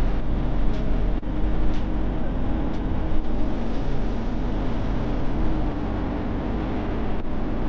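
Hyundai Universe Xpress Prime coach under way, heard from inside the cabin: a steady rumble of engine and road noise.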